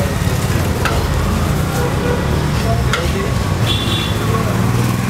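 Steel ladle scooping and scraping biryani rice in a large aluminium pot, with two sharp metal clinks about one and three seconds in, over a steady low rumble of street traffic.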